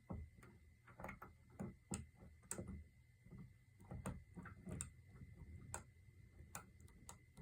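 Faint, irregular metallic clicks and scrapes of a hook pick working the pin stack inside a Kwikset doorknob's keyway while a tension wrench holds the plug, roughly one to two clicks a second.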